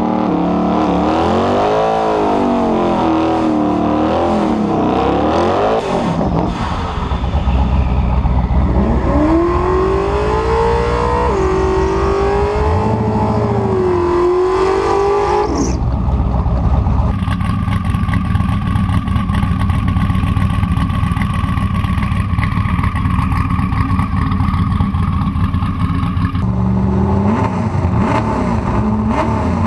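Twin-turbo LS V8 drag car revving in repeated rising and falling sweeps while it sits at the line. Around the middle it settles into a steadier loud drone, then revs again near the end.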